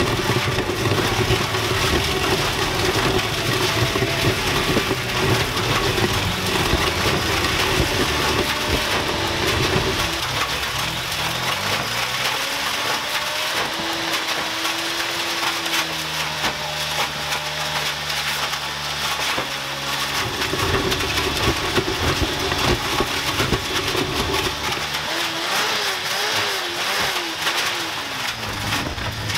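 Honda CBR600 inline-four motorcycle engine driving the Mega Blender's two-foot blades while it shreds a crash helmet. It runs steadily at first, then the revs drop and climb again, hold at a higher pitch for a few seconds, and waver up and down near the end.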